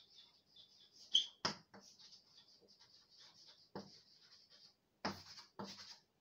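Chalk writing on a blackboard: a faint, continuous high scratching, with short sharp taps as the chalk strikes the board, the loudest about a second and a half in and a few more near the end.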